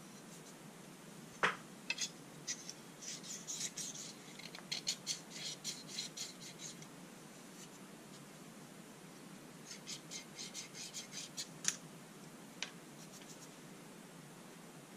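The two loose steel blades of a dismantled pair of Wilkinson Sword scissors being handled and rubbed together: one sharp click about a second and a half in, then two runs of quick, light metallic scrapes and ticks.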